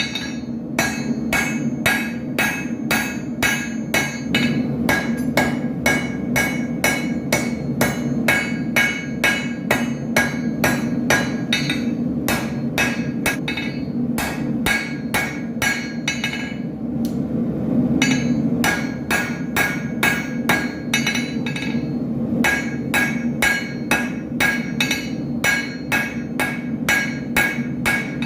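Blacksmith's hammer striking steel on an anvil while forging a drawknife, a steady run of ringing blows about three a second, with a brief pause a little past halfway. A steady low hum runs underneath.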